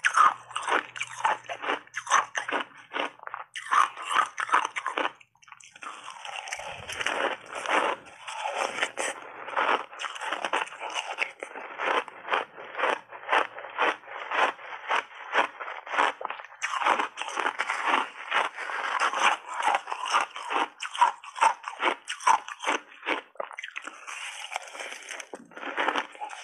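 Chunks of refrozen ice coated in matcha and milk powder being bitten and chewed, a dense run of rapid crunching close to lapel microphones, with a short break about five seconds in.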